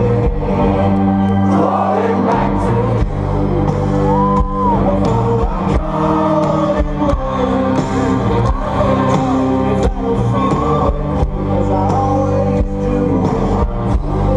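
A rock band playing live through a big festival PA system, heard from inside the crowd: drums, bass and guitar with a steady, even drum beat, and vocals. The crowd sings along.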